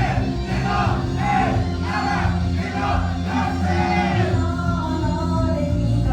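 Loud live rock-style music: voices singing over a full backing with heavy bass.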